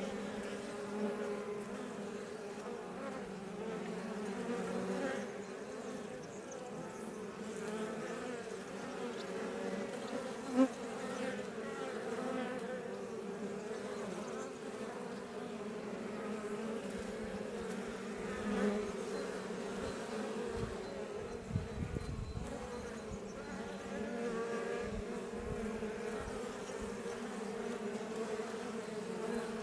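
Iberian honey bees (Apis mellifera iberiensis) buzzing in a steady swarm drone at a Langstroth hive, the pitch of individual bees wavering as they fly about, with one brief louder buzz about ten seconds in.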